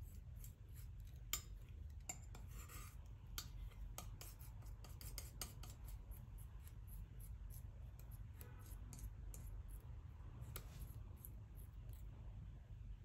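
Metal palette knife scraping and spreading thick paint across a smooth surface: faint, irregular light clicks and scrapes of the blade, more frequent in the first half.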